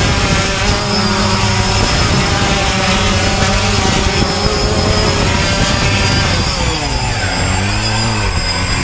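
DJI Phantom quadcopter hovering, its four brushless motors and propellers buzzing steadily with a high whine over the top. In the last two seconds the pitch dips and swings back up as the drone is brought down and caught by hand.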